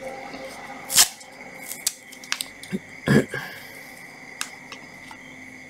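Handling noise of a cordless drill being picked up and worked at by hand: a sharp click about a second in, a scattering of small clicks, and a louder knock about three seconds in, over a faint steady high tone.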